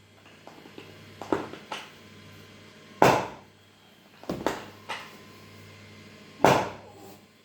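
Sharp cracks and knocks during a chiropractic neck and shoulder adjustment, one after another at irregular intervals. The loudest comes about three seconds in and another near the end, with smaller ones between.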